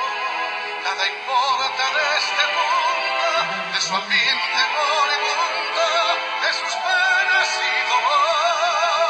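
Background music: a slow song with a wavering vibrato melody over accompaniment.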